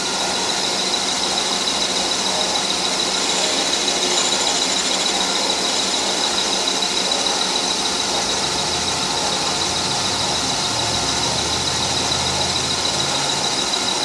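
Metal lathe running with a steady high-pitched whine over its motor and chuck noise while the cutting tool takes a light pass on the spinning workpiece.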